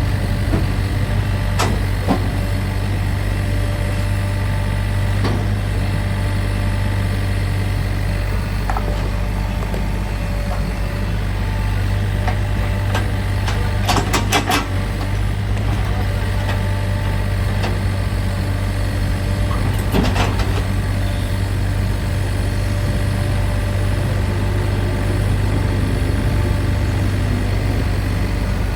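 Sany mini excavator's diesel engine running steadily, with scattered metallic clanks and knocks from the machine's working parts, including a quick run of several clicks about halfway through and another knock about two-thirds in.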